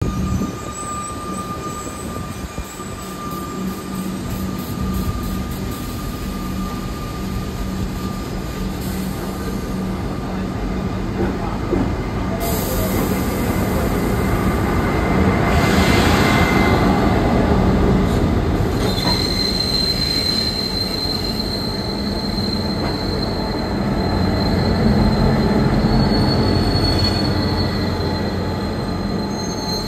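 SSR P-class diesel locomotives P18 and P16 hauling a maintenance train past at low speed, their engines making a steady low drone that grows louder as the locomotives come alongside. A hiss about twelve seconds in, and a steady high-pitched wheel squeal from the train's wheels in the second half.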